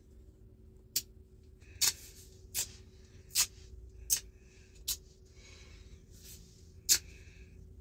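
Adhesive tape pressed onto a glass touchscreen and pulled off again and again to lift dust, each pull-off a short sharp snap. Six come about every three-quarters of a second, then a pause and one more near the end.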